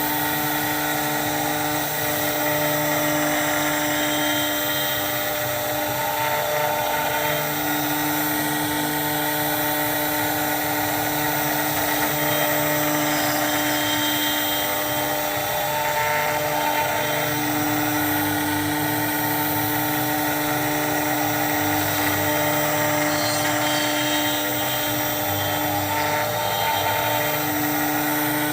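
CNC router spindle running at high speed while its bit cuts UHMW plastic: a steady whine of several held tones over a cutting hiss, with the lowest tone fading and returning from time to time.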